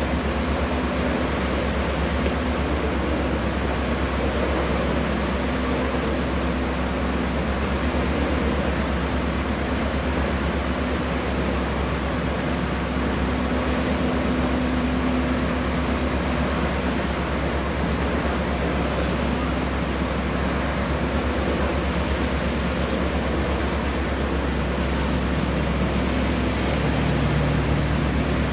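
Engines and KaMeWa waterjets of a 42 m Brødrene Aa carbon-fibre catamaran ferry running steadily as it manoeuvres, a low drone and hum over the rush of churned water; the hum shifts slightly near the end.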